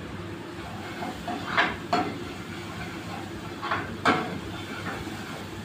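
Cooking utensil clinking and scraping against a metal frying pan as chopped chicken stuffing is stirred. There are a few sharp knocks about one and a half seconds in and again about four seconds in, over a steady kitchen background hum.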